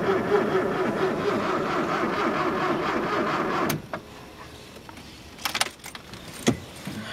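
Starter cranking the cold 1.4 CVH four-cylinder of a 1991 Ford Escort at −19 °C, turning steadily for almost four seconds with no cylinder firing, then cutting off abruptly. A few sharp clicks follow.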